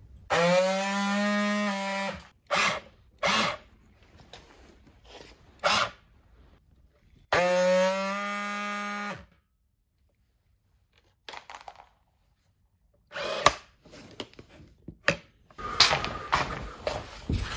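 Cordless power drill/driver run twice at a steady pitch for about two seconds each, with clicks and knocks of parts and tools being handled in between, and a rustling clatter of handling near the end.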